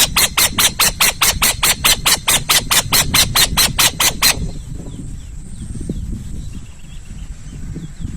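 An owl giving a rapid series of about twenty harsh, hissing notes, roughly five a second. The series stops about four seconds in, leaving faint outdoor background.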